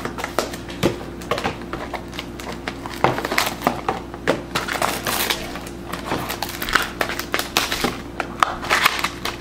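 Clear plastic wrap crinkling and crackling as a trading card box is unwrapped by hand, in many small irregular crackles.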